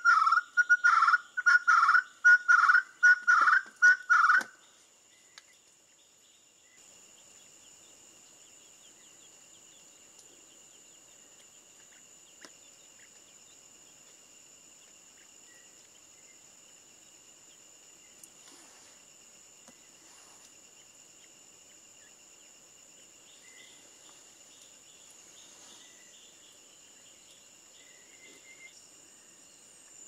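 Ferruginous partridge calling: a fast run of high notes that slows into a string of loud, evenly pitched notes, stopping about four and a half seconds in. After that, quiet forest background with a steady high-pitched insect drone.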